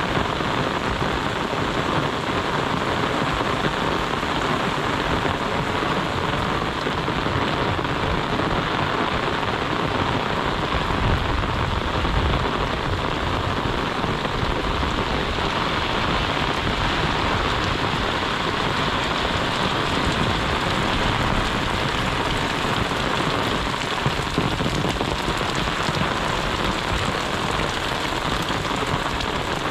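Heavy monsoon rain falling steadily, an even hiss of rain on surfaces.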